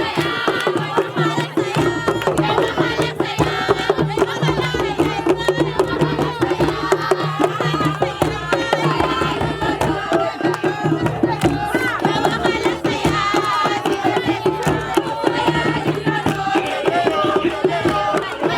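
Music with fast, dense hand drumming and several voices singing over it.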